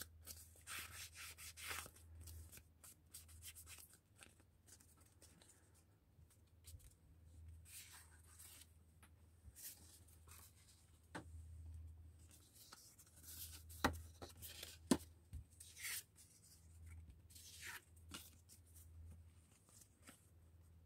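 Paper and card being handled: soft rustles and slides of paper and manila tags, with a few light knocks partway through, over a faint low hum.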